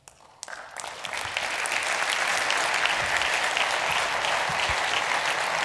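A large audience applauding; the clapping starts about half a second in and swells to a steady clatter within a second.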